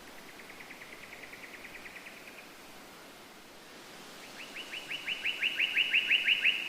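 A bird singing two rapid trills of quick repeated notes, about eight a second: a faint one first, then a louder one a couple of seconds later that swells as it goes. A steady hiss runs beneath.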